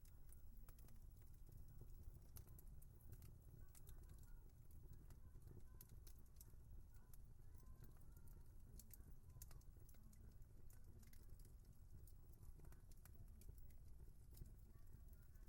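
Wood fire crackling faintly: irregular sharp snaps and pops over a low steady rumble.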